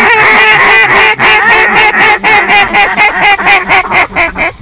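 A duck call blown by hand giving a fast, loud string of quacks. The notes get shorter and weaker near the end.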